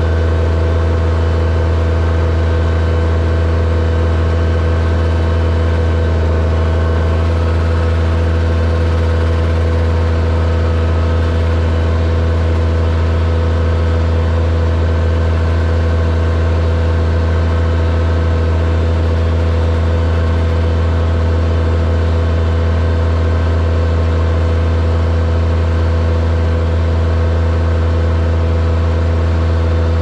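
New Holland T7030 tractor's six-cylinder diesel engine running steadily, powering the hydraulics as the Beco Carrier hooklift trailer tips its container.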